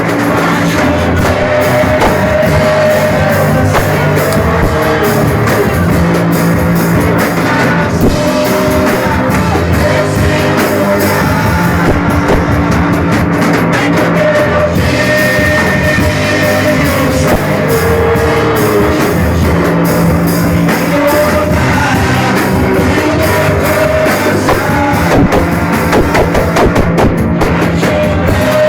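Loud rock-style band music with a drum kit, held notes and a wavering sung or lead melody, playing without a break.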